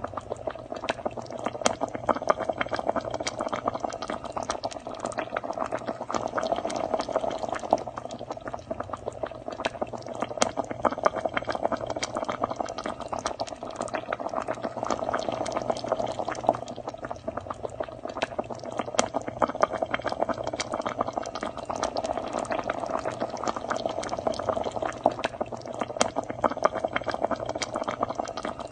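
Pot of fish stew with leafy greens boiling hard: steady bubbling with many small pops.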